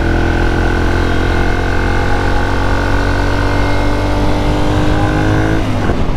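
Ducati Monster 696 motorcycle engine running at a steady pitch under wind noise, with a steady higher whine over it. The even tone stops about five and a half seconds in, leaving rougher noise.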